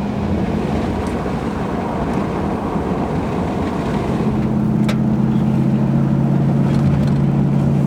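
Vehicle running: a steady engine hum and rumble of road noise, the low hum growing steadier and stronger about four seconds in.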